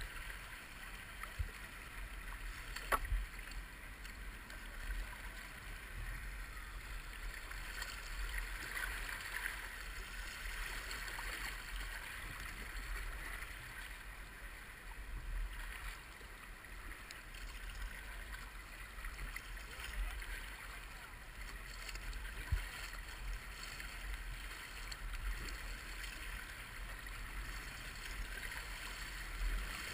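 Steady rush and splash of river water around a small paddled boat, with a low rumble underneath. A sharp knock comes about three seconds in and another a little past the middle.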